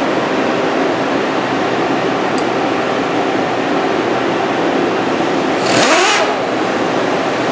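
Steady machine hum, then about six seconds in a short burst of hiss and whir from the Trak DPM2 mill's Max Torque pneumatic automatic drawbar (collet closer) cycling. In the burst the pitch drops and then climbs again.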